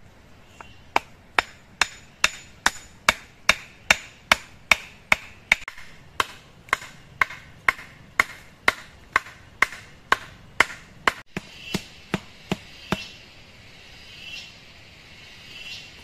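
A hatchet hammering a wooden stake into the ground: a long run of evenly paced blows, about two to three a second, that stops about thirteen seconds in.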